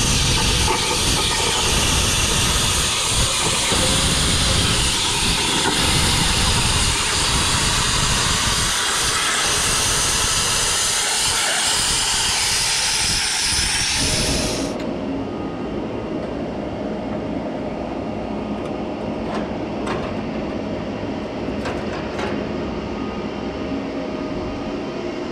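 Plasma cutter torch on a CNC table cutting aluminum diamond-tread plate: a loud, steady, high hiss of the arc and air that cuts off abruptly about two-thirds of the way through. After that a quieter steady background remains, with a few clicks and light metal clatter as the cut plate is handled.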